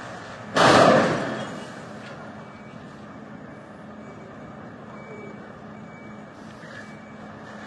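Vehicle noise: a sudden loud rush of sound about half a second in that fades over a second or so, then a steady low hum.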